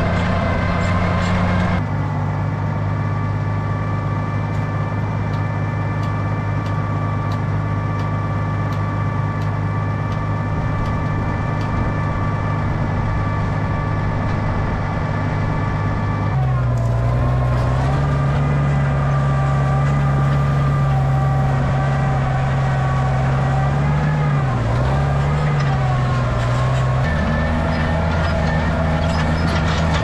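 Oliver 1650 tractor engine running steadily while pulling a wheel rake. Its pitch shifts about halfway through and dips briefly, then recovers, later on.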